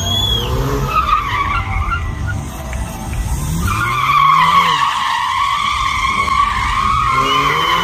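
Audi TT drifting: its engine revs up and down while its tyres squeal on the concrete. A long, loud tyre squeal starts about halfway through and runs on to the end.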